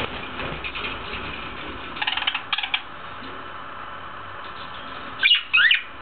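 Budgerigars chirping in their cage: a brief scratchy chatter about two seconds in, then several sharp, quick high chirps near the end, the loudest sounds here.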